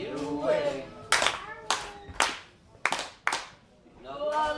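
Sharp hand claps, about six of them spread over two seconds and unevenly spaced, with voices just before and after.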